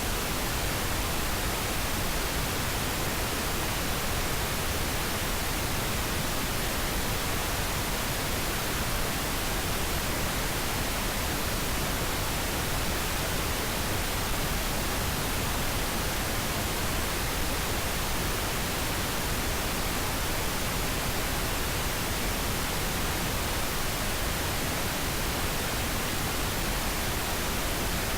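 Pink noise: a steady, even hiss of random noise spread across the whole frequency range, unchanging throughout.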